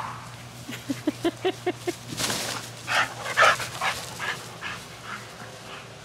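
American bully dog making excited noises as it chases a thrown ring fetch toy: a quick run of about six short high yips, then a few louder breathy huffs.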